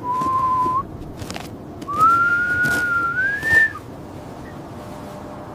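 A person whistling two notes over a steady background hiss: a short level note, then a longer, higher note that rises at its end.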